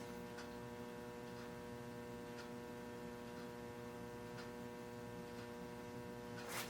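Steady electrical mains hum, with faint ticks about once a second.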